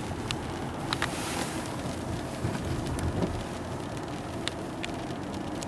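Steady road noise inside a moving car's cabin, with a handful of sharp ticks from raindrops striking the windshield.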